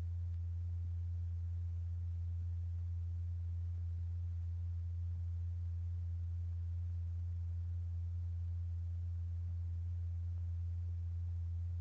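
A steady, low pure tone from the sine-wave oscillator that drives the vibrating plate, exciting the kaolin as it cools and solidifies.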